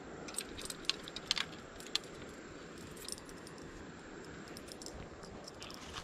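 Light metallic clicks and clinks from a baitcasting reel and a dangling inline spinner lure as the rod is handled before a cast: a cluster of sharp ticks in the first two seconds, then a few more, over a faint steady background.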